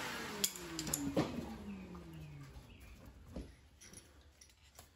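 Electric air pump spinning down after being switched off once the boat's pontoon is partly inflated. Its whine falls in pitch over about two and a half seconds, with a few clicks in the first second or so, then fades to faint.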